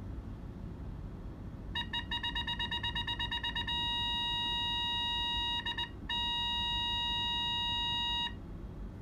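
GANRIKI ultrasonic sonar's obstacle warning beeper sounding as a person comes close behind the vehicle: rapid high beeps about eight a second from about two seconds in, turning into a continuous tone, which breaks briefly with a couple of beeps and resumes before cutting off near the end. The quickening to a steady tone signals the obstacle is very close.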